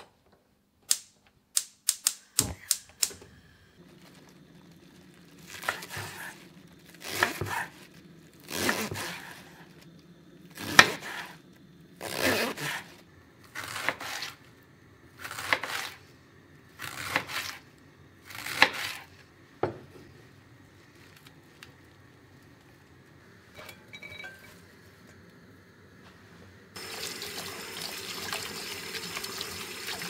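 A gas hob igniter clicks rapidly about half a dozen times. Then a large knife slices through a head of Chinese cabbage on a wooden chopping board in about ten crunchy strokes, each about a second and a half apart. Near the end, tap water starts running steadily into a glass bowl of shredded cabbage in a steel sink.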